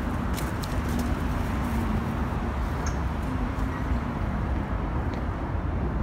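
Steady low rumble of city street noise, with a few light clicks in the first second.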